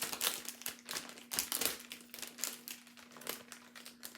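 Cellophane envelope crinkling and crackling as it is handled, in quick irregular bursts, over a faint steady hum.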